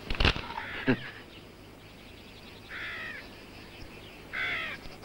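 Crows cawing a few separate times in the second half, with two sharp knocks about a second apart near the start.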